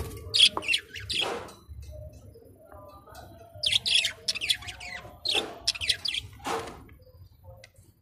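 Caged budgerigars and lovebirds chirping in several short, high-pitched bursts with pauses between.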